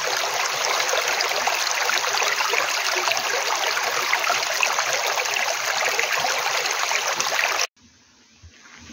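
Shallow mountain stream flowing over rock slabs and boulders: a steady rush of running water that cuts off suddenly near the end.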